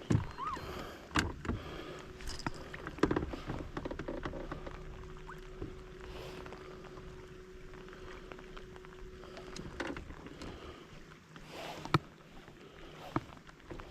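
Irregular knocks, clicks and clatter in a bass boat as a hooked bass is brought aboard and handled, with one sharp knock standing out near the end. A steady hum runs for several seconds in the middle.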